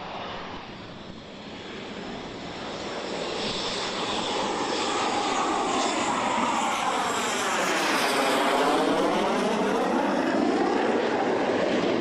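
Jet engine of the X-47B unmanned aircraft flying past, growing louder over the first few seconds, with a sweeping, phasing change in tone as it passes about eight seconds in.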